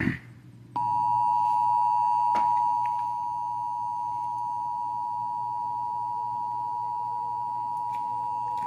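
Emergency Alert System attention signal: a steady two-tone beep of two close pitches held for about eight seconds. It marks the start of a new emergency alert broadcast and drops slightly in level about three seconds in.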